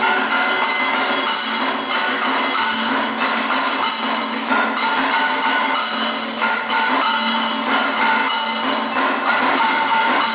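Kathakali accompaniment music: metal cymbals and gong ringing, struck over and over, with drums under them.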